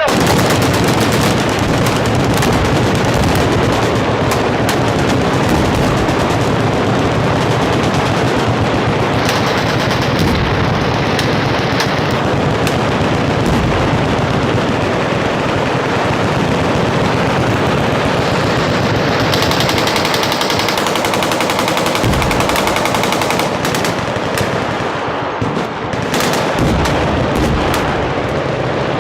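Machine guns firing together from a firing line: continuous, dense automatic fire with bursts overlapping and no pause.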